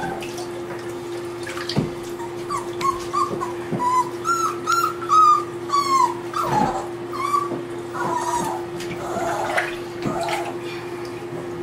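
Wet Aussiedoodle puppy whining in a bathtub: a string of short, high whines over several seconds, over a steady low hum.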